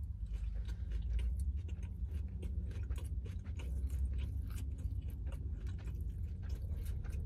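Close-up chewing of a mouthful of chicken salad sandwich, with many small wet mouth clicks and smacks at an uneven pace, over a steady low hum.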